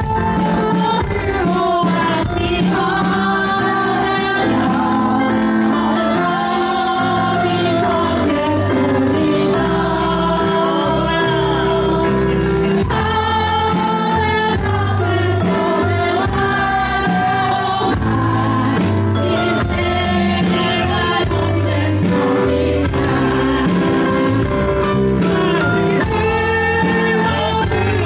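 Live band playing an upbeat song: singers over a drum kit, keyboard and bass, with a steady beat.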